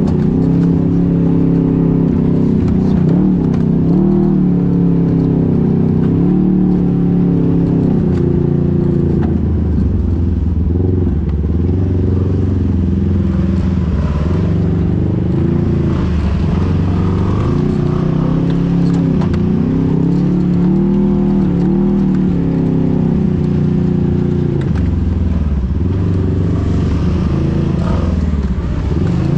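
A motor vehicle's engine running while under way, its pitch rising and falling again and again as the throttle and speed change.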